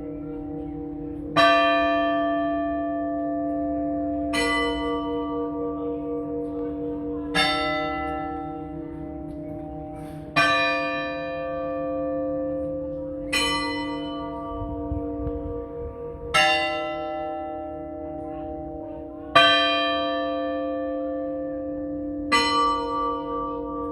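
Church bell tolling slowly, one strike about every three seconds, each stroke ringing on into the next: the slow mourning toll of Good Friday.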